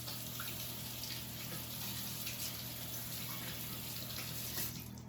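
Kitchen sink tap running as hands are rinsed under it, the water shutting off near the end.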